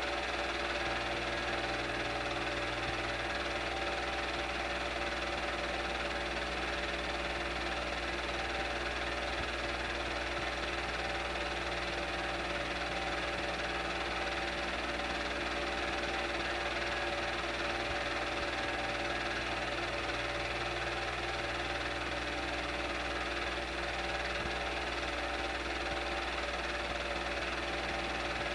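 Super 8 film projector running: a steady mechanical whir from its motor and film transport that does not change.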